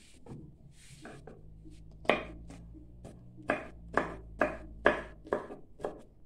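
Kitchen knife chopping green herbs on a wooden cutting board: sharp knocks of the blade on the wood, the first about two seconds in, then a quick run at about two a second.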